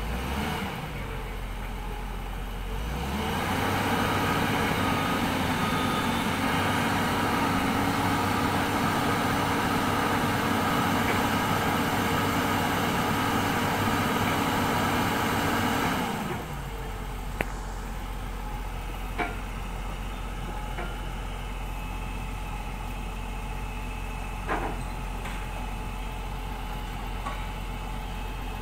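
Hyundai 210W-9S wheeled excavator's diesel engine idling, raised to a higher steady throttle about three seconds in, then dropping back to idle at about sixteen seconds. A few short, sharp knocks sound over the idle near the end.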